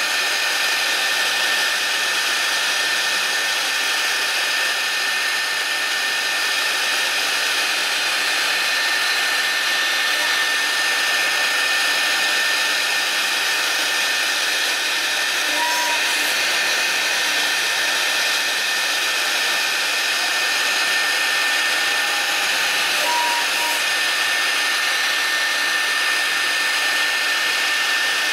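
Side-mounted spindle of a 4-axis CNC router running at speed with a steady high whine as its bit cuts into a block of expanded polystyrene foam.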